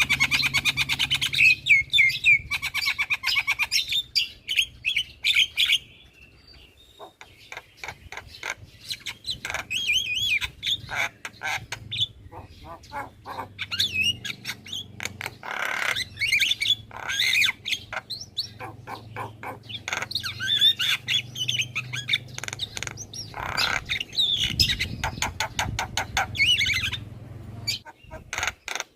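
Javan myna calling almost without pause: a varied run of harsh chatters, clicks, squawks and short whistles, with a brief lull about six seconds in.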